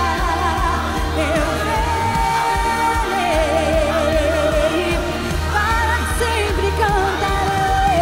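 A woman singing a worship song at full voice, holding long notes with vibrato, over instrumental accompaniment with a bass line and a steady beat.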